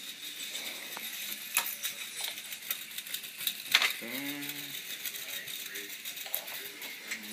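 K'NEX Vertical Viper model roller coaster running: the plastic lift mechanism and coaster car give a steady rattle with many small clicks, and one sharp click a little under four seconds in.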